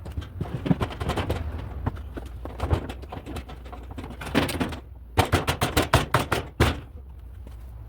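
Knocks and taps as the new transmission and its seal are seated into the washer's tub, with a quick run of sharp strikes a little past halfway.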